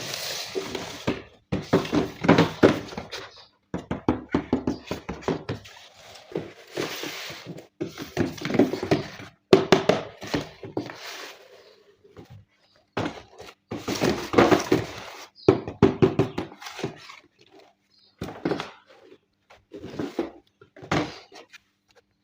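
Hands handling a toy box and its packaging: irregular rustling, scraping and thunks, broken by short pauses.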